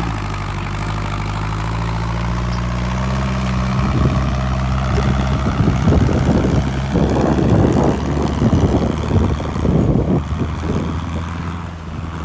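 Homemade tractor's engine running steadily under load as it tows a trailer and a car through mud, with irregular bursts of rougher noise through the middle.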